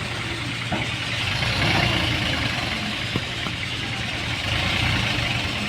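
Heavy vehicle's diesel engine running steadily at low revs, near idle.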